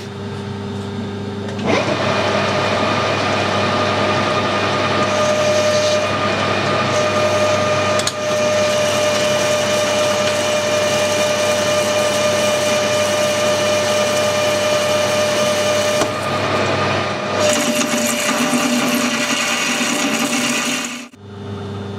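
Metal lathe cutting aluminium. The spindle runs with a steady hum, then about two seconds in the turning tool bites into the aluminium pulley and a steady cutting noise with a high whine carries on. It stops suddenly about a second before the end.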